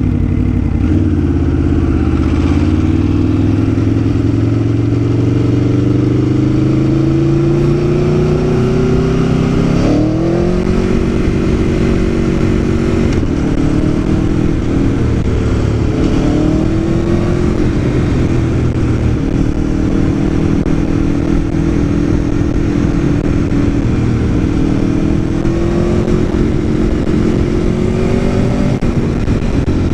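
Aprilia Tuono V4 1100 APRC's V4 engine under way. The revs climb slowly, rise quickly about ten seconds in, then hold fairly steady with small changes, over a constant low rush of wind noise.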